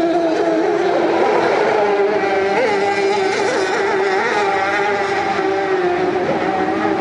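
Racing hydroplane's Mercury 50 hp outboard motor running flat out at high revs, a steady high-pitched drone that jumps briefly in pitch a few times, over the rush of whitewater spray.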